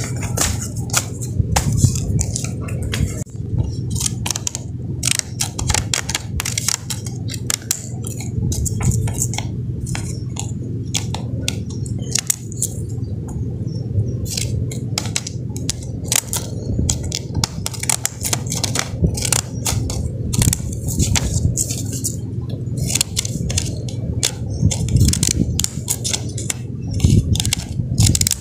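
Scissors snipping through black paper, with paper rustling and handling: many short, irregular clicks and crisp snips over a steady low hum.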